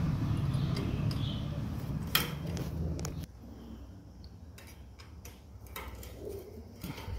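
Sharp clicks and light metallic taps of a CO2 regulator being handled on its gas cylinder, over a steady low hum that cuts off suddenly about three seconds in.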